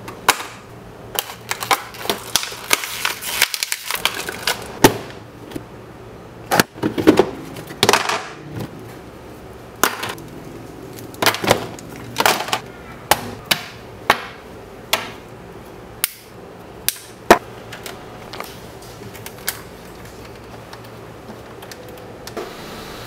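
Irregular clicks and knocks of hands handling gear on a wooden tabletop: cables and plastic parts rattled in a plastic tub and items set down on the table. A faint low hum runs underneath.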